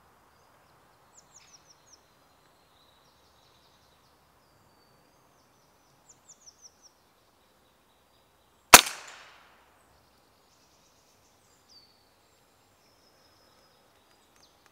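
A single shot from a .177 Walther RM8 UC pre-charged air rifle about nine seconds in: one sudden report with a short ring-off. Small birds give a few quick chirps twice before it.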